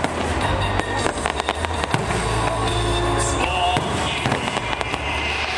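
Aerial fireworks shells bursting in quick succession with many bangs and crackles, over music playing throughout.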